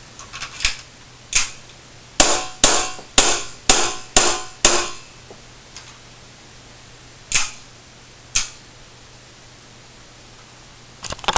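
KWA Beretta M9 gas blowback airsoft pistol firing: sharp cracks, one or two singly, then a quick string of six about two a second, then two more spaced about a second apart. A rapid run of lighter clicks follows near the end.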